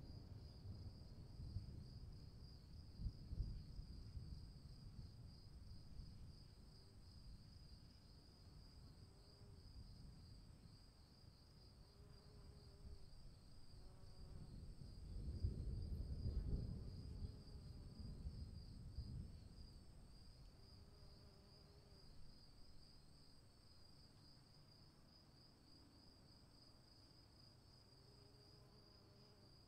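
Faint, steady high-pitched insect chorus trilling throughout. A low rumble swells and fades about halfway through, with a smaller one near the start.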